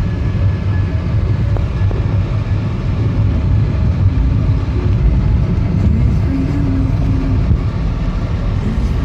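Volkswagen up! TSI's 1.0-litre turbocharged three-cylinder petrol engine running steadily with a constant low rumble.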